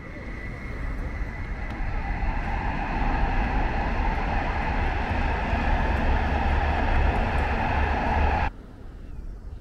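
Noise of a large passing vehicle, swelling over the first few seconds, then holding loud and steady until it cuts off abruptly shortly before the end.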